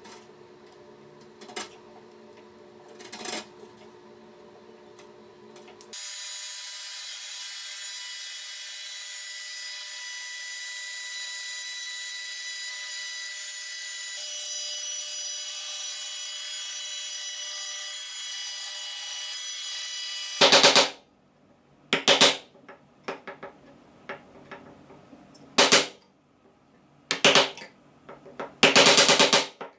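Trim router with a dust-extraction hose running steadily for about fifteen seconds, cutting off suddenly. Then a chisel chops into oak with about eight loud, sharp knocks. Before the router starts there are only a few light taps of a chisel.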